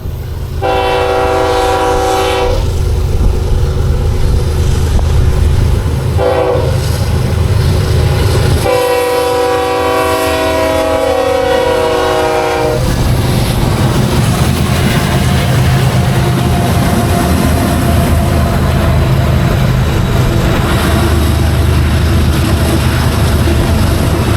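Freight train locomotive air horn sounding three blasts over the steady rumble of the passing train: a blast of about two seconds, a brief one a few seconds later, then a longer blast of about four seconds.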